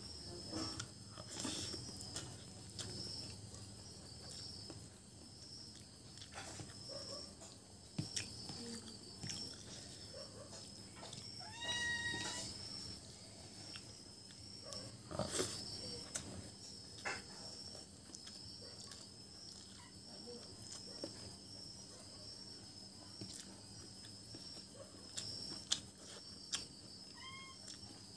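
Crickets chirping steadily in a high, pulsing trill, with close mouth-and-hand eating sounds: chewing and soft clicks of rice and curry eaten by hand, picked up by a lapel microphone. A short pitched animal call comes about twelve seconds in and a fainter rising one near the end.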